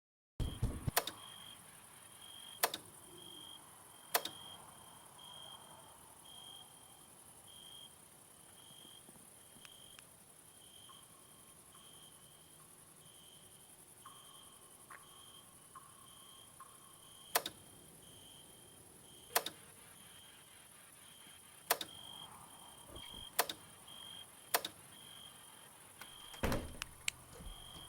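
A short, high chirp repeating steadily about one and a half times a second, with a sharp click or knock every few seconds.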